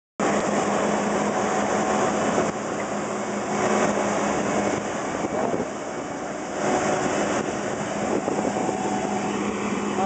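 New Holland CS6050 combine harvester running under load while harvesting rice: a steady engine hum beneath the dense, continuous noise of its threshing machinery.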